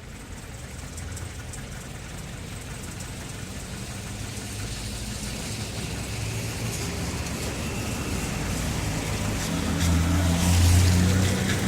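Town traffic on a wet road: engine hum and the hiss of tyres on wet tarmac, growing louder as a vehicle draws near, loudest near the end.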